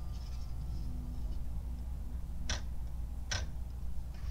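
Two sharp clicks, about three-quarters of a second apart past the middle, as the wooden back panel of a cuckoo clock is handled and set against the case.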